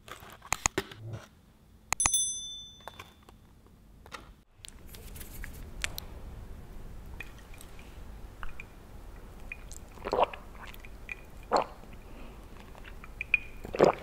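Close-miked eating and drinking sounds. A few sharp clicks open it, and a bright bell-like ding comes about two seconds in. After a short break come soft mouth sounds and sips, with three louder mouth noises in the second half.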